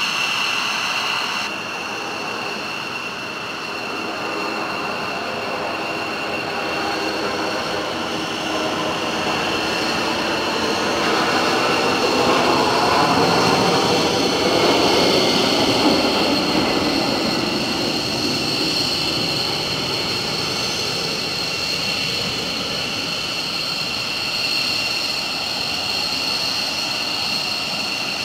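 McDonnell Douglas KC-10 Extender's three General Electric CF6 turbofans at takeoff power as the tanker rolls, lifts off and climbs out. A steady jet roar with two high whining tones grows loudest about halfway through, as the aircraft passes closest, then eases a little as it climbs away.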